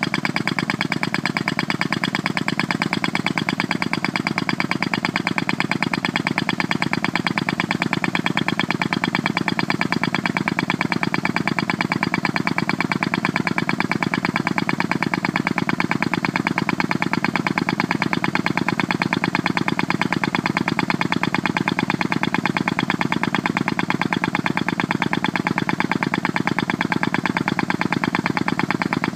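A 65 mm prototype pneumatic ground-piercing tool (impact mole) hammering at a fast, steady, even rate as it runs on air through its hose.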